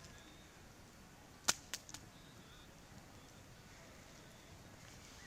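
Wood campfire popping: three sharp cracks in quick succession about a second and a half in, the first the loudest, over a faint steady background.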